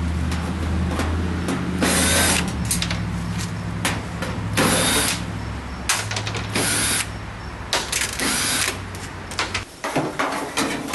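Power drill backing screws out of a clothes dryer's sheet-metal back panel, in several short runs of about a second each. A steady low hum runs underneath and stops near the end, followed by a few clicks.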